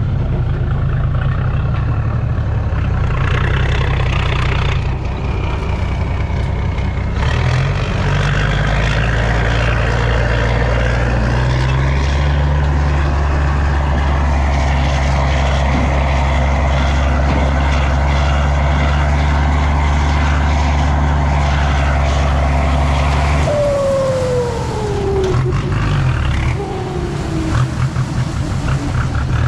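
Heavy diesel dump truck with a loud exhaust running under load. It revs up in steps and holds a steady, loud pull for about ten seconds, then drops off near the end with a falling whine.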